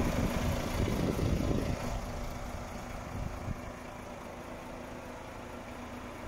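Iveco Stralis AS440S48 truck's diesel engine running, louder for about the first two seconds and then settling to a steady idle with a constant hum.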